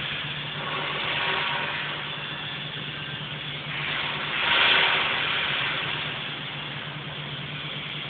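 Daiton welding machine running: a steady low hum under a hiss that swells louder about four and a half seconds in.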